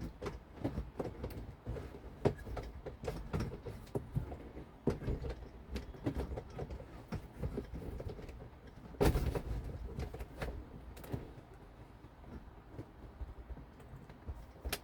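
Irregular small clicks, taps and knocks of hand work on a boat's metal bimini frame while a rivet is worked into place, with a louder scrape-like noise about nine seconds in.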